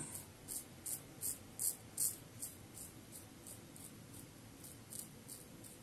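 Fatip slant safety razor scraping through five-day stubble on the neck: short quick strokes, about two or three a second, getting fainter after the first couple of seconds.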